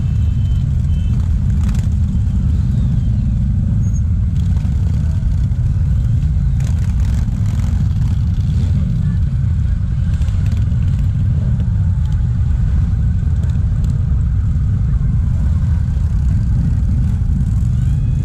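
Engines of a large group of cruiser motorcycles running together as they roll slowly in a pack, making a steady low rumble.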